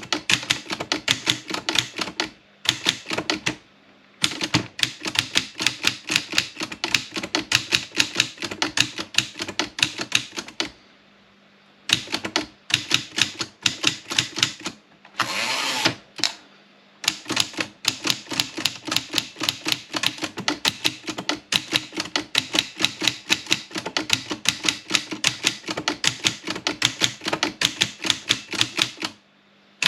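Olympia Plana manual typewriter being typed on fast, with rapid key strikes in runs broken by short pauses. About halfway through comes a longer scraping sound of about a second as the carriage is pushed back for a new line.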